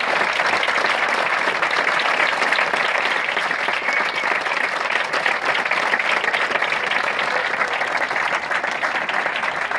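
Theatre audience applauding: many hands clapping in a dense, steady ovation.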